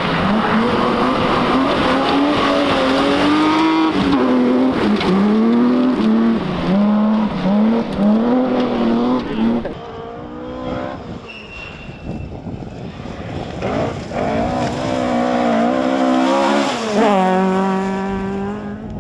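Rally car engines at full throttle on a gravel stage, the revs rising and dropping again and again through gearchanges and lifts. After a quieter spell in the middle, a Mk2 Ford Escort's engine climbs and holds a high, steady note as it passes close.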